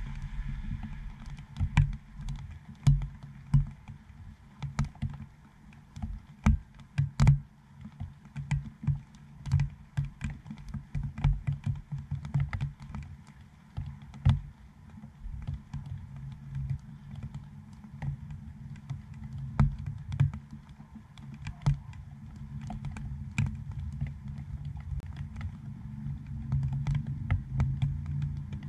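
Raindrops striking a GoPro dome housing close to the microphone: irregular sharp taps, some much louder than others, over a steady low rumble.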